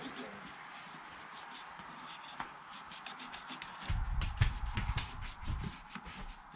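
Toothbrush scrubbing a wood stove's door frame and cracks, quick scratchy back-and-forth strokes. A low rumble joins in about four seconds in.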